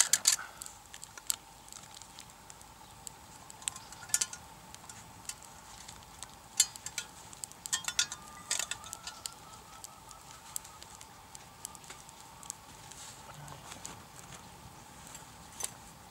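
Small wood fire burning in a folding firebox, crackling with scattered sharp pops and clicks, some coming in quick clusters.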